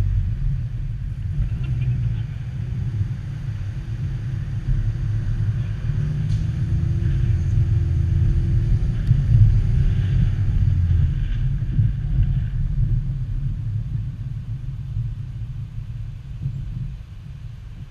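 Low, steady rumble of a car driving slowly through city traffic: engine and road noise heard from the car's hood. It swells toward the middle and eases off near the end.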